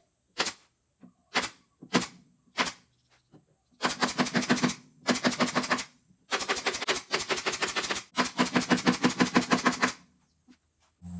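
A few separate sharp knocks, then four bursts of rapid, evenly spaced clicking, about ten a second, with a low tone underneath: a tool at work during the subwoofer cabinet build.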